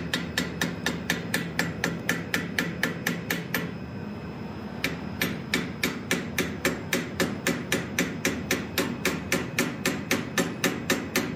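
Hand hammer striking a small piece of half-inch square steel stock clamped in a blacksmith's vise in rapid, even blows, about four to five a second, knocking the corners off to even up the eyes of a forged dragonfly head. The blows stop for about a second a third of the way in, then resume at the same pace.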